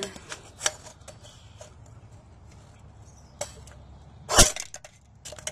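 A single shot from an ARES TAR-21 airsoft rifle about four and a half seconds in, its BB punching through the bottom of an aluminium soda can held close by. A few fainter clicks of handling come before it.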